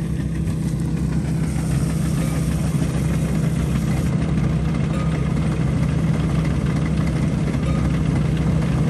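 Rice combine harvester's engine running steadily at raised revs while cutting rice, a continuous drone with a strong low hum.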